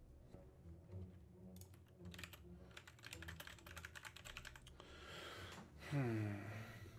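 Typing on a computer keyboard: a quick run of key clicks lasting about three seconds. Near the end comes a breath and a short falling 'hmm' from a man.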